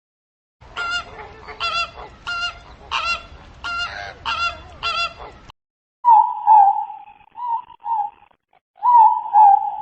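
Goose honking, about eight calls in a steady series. A second clip follows about six seconds in with two longer wavering calls.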